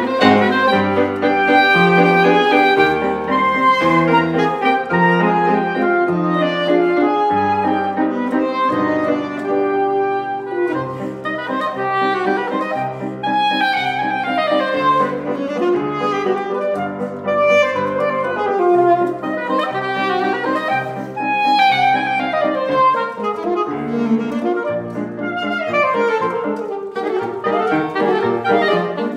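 Alto and soprano saxophones playing a classical duet in quick-moving lines, over a piano accompaniment holding low bass notes.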